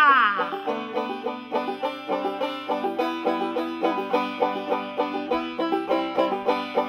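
Banjo being picked in a quick, steady run of plucked notes. It opens with a loud whoop that slides down in pitch.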